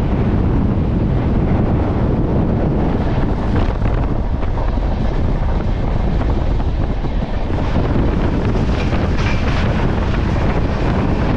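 Wind buffeting the microphone over the steady rumble of the Jaipur Superfast Express running along the line.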